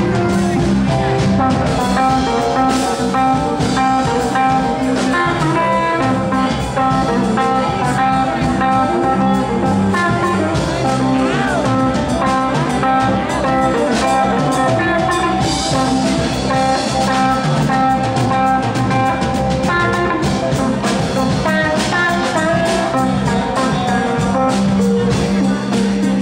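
Live band playing: amplified electric guitars with held and bent notes over bass guitar and a drum kit keeping a steady beat.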